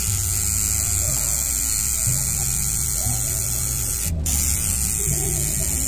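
Coil tattoo machine buzzing steadily as it works ink into skin.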